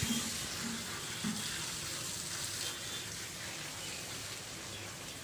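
Steady hiss of water spraying from a garden hose and splashing.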